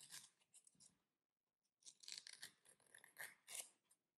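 Faint scratchy strokes of a nail file rubbing the tip of a fingernail, filing off the overhang of a gel nail strip. The strokes come in two short runs, a few in the first second and a quicker series from about two seconds in.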